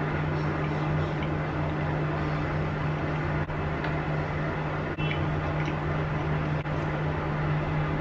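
Steady machine hum with a constant low tone and a hiss above it, unchanging throughout. Faint chewing of soft bread sits under it.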